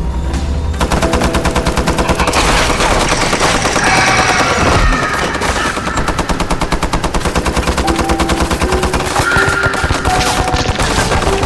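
Music track with a rapid, even rattle like machine-gun fire, about ten hits a second, starting about a second in and running over the track's sustained tones.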